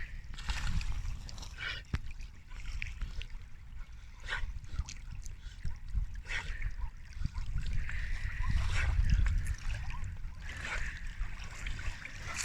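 Water splashing and sloshing around a boat, with irregular bursts of splashing over a steady low rumble.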